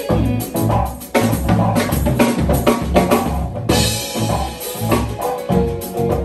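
Live jazz trio playing: electric bass, keyboards and a drum kit, with the drums to the fore. Busy cymbal and drum work over a pulsing bass line; the cymbal wash drops away a little past halfway.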